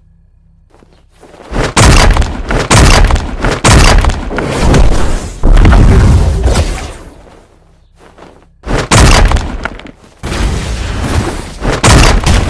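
Rapid, very loud metal bangs and crashes in three runs: the first starting about a second and a half in and lasting several seconds, then two shorter runs after a brief pause.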